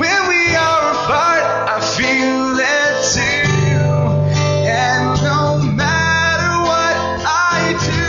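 Two acoustic guitars played together with a man singing a melody over them, a live acoustic duo performance.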